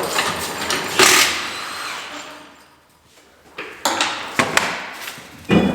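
Hand tools and metal parts being worked on a skid steer: a stretch of scraping and handling with a knock about a second in, then several sharp metal knocks and clanks in the last couple of seconds.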